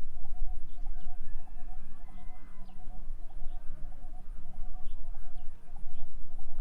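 Birds calling: a fast, unbroken run of short low notes repeating several times a second, with scattered brief higher chirps, over a steady low rumble.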